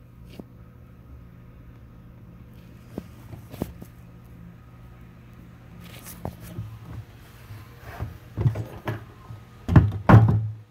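A steady low electrical hum with a few light clicks, then a run of loud, irregular rubbing knocks in the last few seconds as the phone is handled close against the machine's plastic housing.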